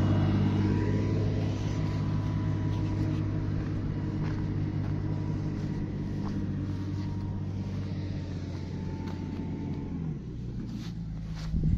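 Drilling rig truck's engine running steadily, slowly fading as the truck drives away. About ten seconds in the engine note changes, and near the end there is a brief knock.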